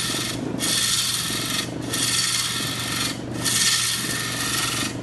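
A turning tool cuts the outside and foot of a spinning wooden bowl on a small wood lathe. The cut comes in about four passes of a second or so each, with short breaks between, over the steady hum of the lathe. These are light, fine cuts, because the small lathe lacks the power for heavy ones.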